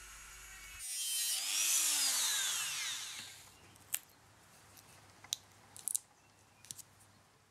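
Dremel rotary tool with a small cutting disc grinding into 3 mm plywood, its whine rising and then falling away as it spins down within about three seconds. A few light clicks follow as the cut piece is handled.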